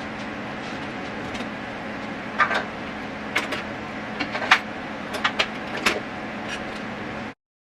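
Dishes and utensils clattering and clinking, a scattered run of sharp knocks, over a steady background hum; the sound cuts off abruptly near the end.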